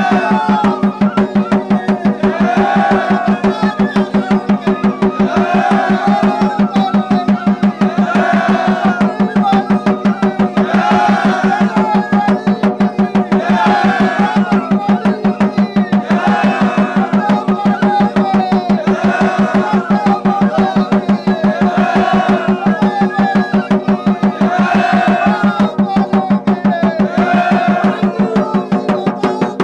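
Instrumental folk music: a fast, even drumbeat over a steady drone, with a short melodic phrase repeating about every three seconds.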